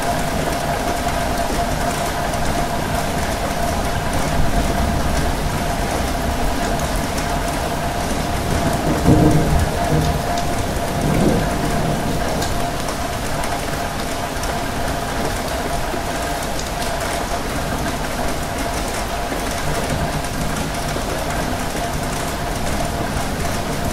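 Steady rain falling, with a faint steady hum underneath. A low rumble swells briefly about nine seconds in and again near eleven seconds.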